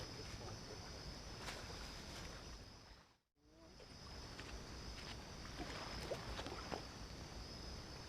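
Outdoor night ambience by the water: a steady high-pitched hum over a low rumble, with a few faint clicks and short chirps. It cuts to silence briefly about three seconds in, then resumes.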